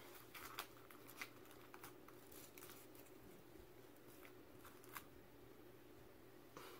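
Near silence broken by faint, scattered clicks and rustles as a glittery mouse-ears headband is pushed on over hair and adjusted. The clearest click comes about five seconds in.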